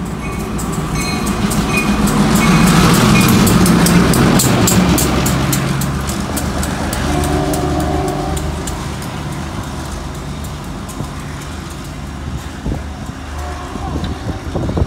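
A diesel locomotive passes close by. Its engine is running, and its wheels click sharply over the rail joints and switches. The sound is loudest two to five seconds in, then fades as the locomotive moves away.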